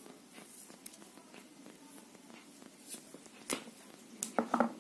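Faint handling noise of a small wire and its crimp ring terminal being worked by hand, with a sharp click about three and a half seconds in and a quick run of four clicks and taps near the end.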